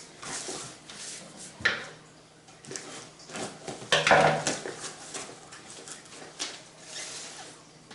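Rustling and crinkling of packaging as a mailed package is opened and its contents handled, with scattered small knocks and a louder crinkle about four seconds in.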